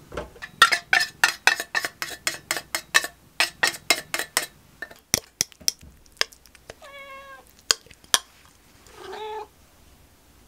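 A metal spoon clicks and scrapes rapidly, about five strikes a second, against a can of wet cat food and a ceramic bowl, then taps a few more times. A cat meows twice in the second half, begging for its treat.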